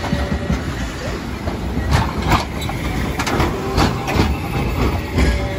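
Toyama Chiho Railway 7000-series streetcar passing close by at low speed: a low rumble from its running gear, with a run of sharp clacks as its wheels go over the track, loudest about two seconds in.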